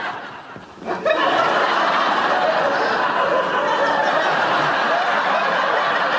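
Sitcom studio audience laughing, swelling up about a second in and carrying on steadily as a crowd laugh.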